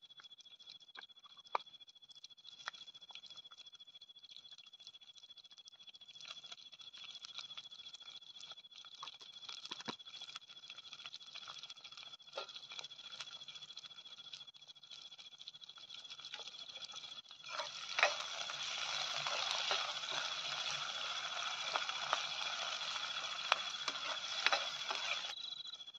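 Steady high-pitched trill of night insects, with scattered light clicks and taps from handling. About two-thirds of the way in, a loud, even hiss starts; it lasts about eight seconds and cuts off near the end.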